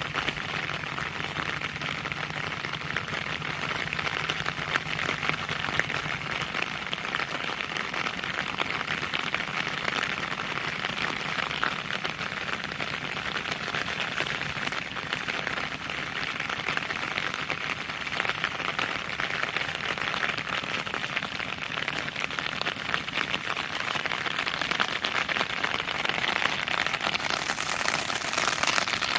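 Heavy rain falling in a dense, steady patter of drops.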